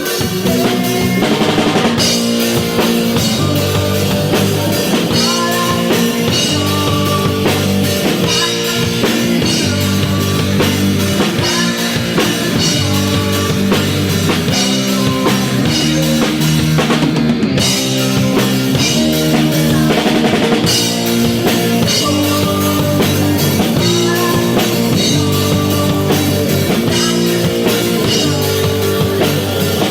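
Rock band playing without vocals: a drum kit drives the beat with kick and snare, under sustained bass and guitar notes.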